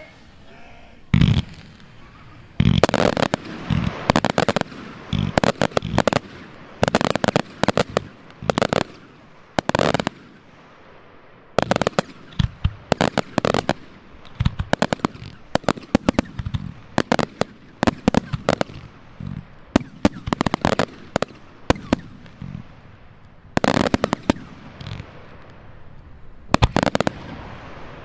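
Fireworks display: aerial shells bursting in a rapid, irregular series of sharp bangs that come in dense clusters with brief pauses between them.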